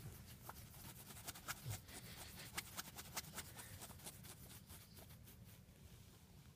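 Fingernails scratching a French bulldog's belly fur: a quick run of soft rubbing scratches and ticks, thinning out after about five seconds.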